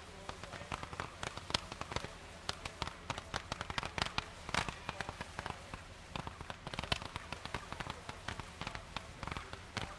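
Fireworks crackling and popping: a dense, irregular run of sharp small cracks, several a second, with no single big boom.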